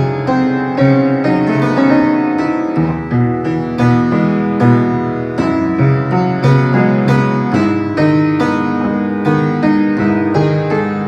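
Solo piano playing a composed piece: a steady stream of struck chords and notes over held bass notes.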